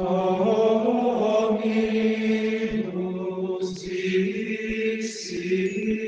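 Chanted vocal music: long held sung notes over a steady low drone, moving to a new pitch every second or two. Two short whooshes cut in, just before four seconds and again at about five seconds in.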